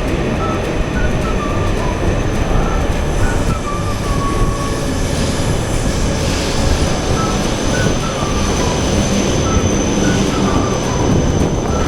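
A train running through the station with a loud, steady rumble and rail noise. A short pattern of high tones repeats over it about every second and a half.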